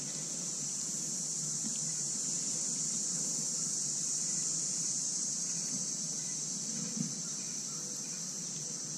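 Steady, high-pitched chorus of insects over a faint low rumble, with one small click about seven seconds in.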